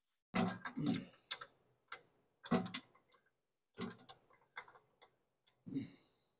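A screwdriver and other hand tools clicking and knocking against metal engine parts: about six short, separate knocks at irregular intervals.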